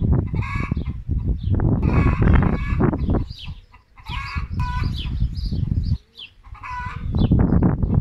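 Domestic chicken calling, a short clucking call every second or two, about five in all. Wind buffets the microphone with a heavy rumble that drops away twice.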